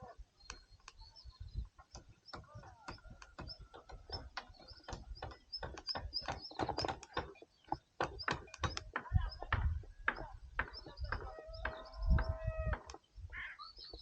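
Outdoor rural sounds: many scattered clicks and knocks, faint high chirps, and one held animal call near the end that sounds like a chicken.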